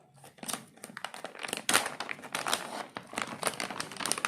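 Packaging crinkling and rustling in irregular bursts as an HDMI cable is pulled out of its box, growing busier and louder from about a second and a half in.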